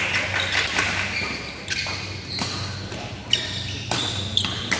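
Court shoes squeaking on a badminton court floor, with a few sharp knocks from racket and shuttlecock play.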